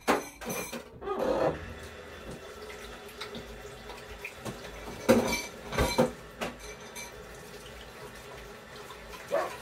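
Kitchen tap running into a sink as rice is rinsed, with a few clatters of dishes against the sink, the loudest about five and six seconds in.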